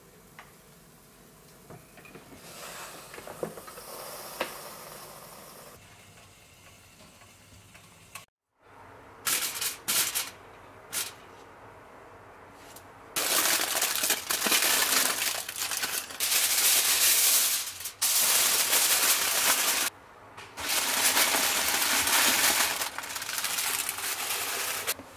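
Aluminium foil crinkling loudly as it is handled and wrapped over a stack of waffles, in several long stretches with short breaks. Before that there are a few light kitchen clinks and knocks.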